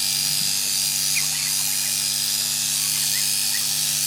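Electric sheep shears running with a steady motor hum and a high buzz, clipping fleece.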